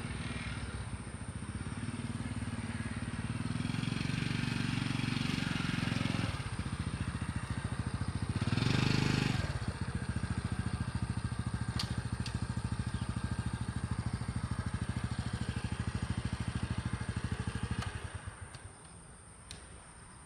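Motorcycle engine running with a steady low pulse, briefly louder about nine seconds in, then cutting off near the end.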